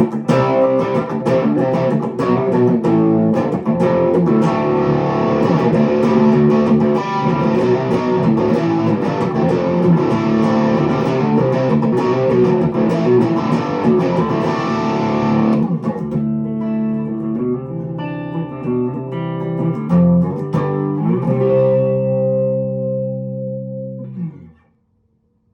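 Schecter Sun Valley Super Shredder electric guitar played through a TX-Watt tube hybrid amp and 1x12 cabinet: a fast run of picked notes, thinning after about sixteen seconds to fewer, held notes. Near the end the pitch slides down and the sound stops.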